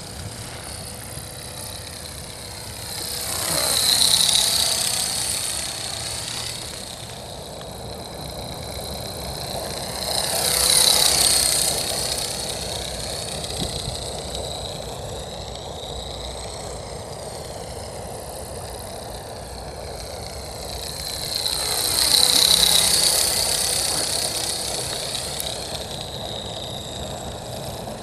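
Accurate 400 radio-controlled helicopter flying, its rotor noise and high whine swelling three times as it comes close, about four, eleven and twenty-two seconds in. It runs with an abnormal noise and vibration left by a crash.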